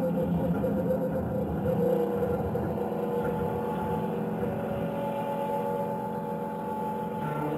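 Live rock band music: held, droning notes over a dense low rumble, with more held notes coming in near the end.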